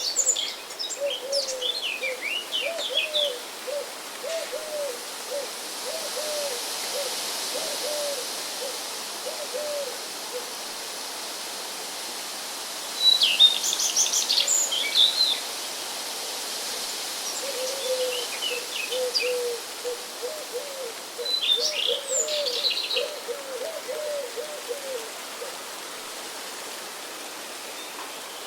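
Birds chirping in short bursts of high, quick notes, with a lower-pitched bird repeating long runs of soft hooting notes, over a steady wind noise.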